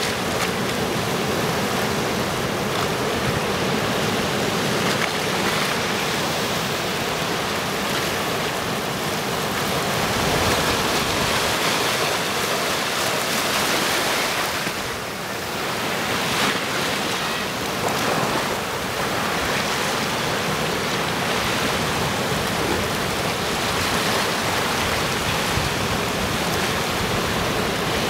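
Sea surf washing in and around large rounded boulders on a rocky shore: a continuous rush of water that swells and eases, dipping briefly about halfway through.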